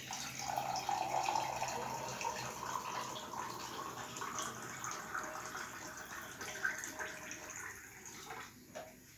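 Water running from a kitchen tap into a steel pot, the sound rising slowly in pitch as the pot fills and dying away near the end.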